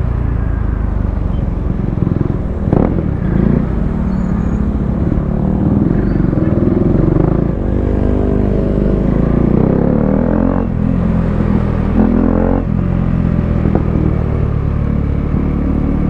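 KTM RC 390 single-cylinder engine running through an aftermarket Akrapovic exhaust, a steady deep note whose pitch rises and falls once around the middle.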